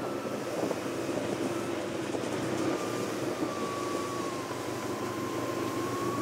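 Snowmobile engine running steadily under way, with a high whine that dips slightly in pitch midway and rises again.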